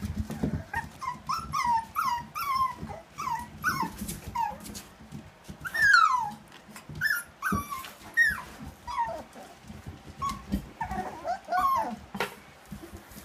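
Puppies whimpering and yelping while they play: a string of short, high cries that fall in pitch, one after another, the loudest about six seconds in.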